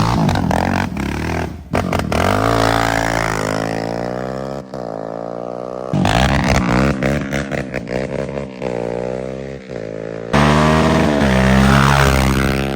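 Yamaha Raptor 700 ATV's single-cylinder engine revving through an aftermarket exhaust, its pitch climbing and falling over repeated throttle blips. The sound breaks off abruptly about six and ten seconds in, where separate takes are joined.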